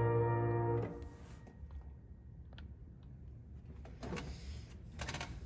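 A grand piano's final chord rings on and is cut off about a second in as the dampers fall. Then it is quiet apart from a few faint clicks and two short rustles near the end.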